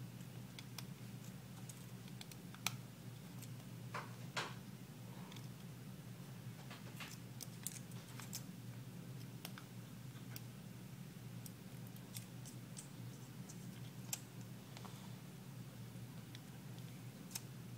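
Scattered small clicks and ticks of a precision screwdriver and tiny screws against a phone's metal mid-frame as screws are backed out, a few sharper taps among them, over a steady low hum.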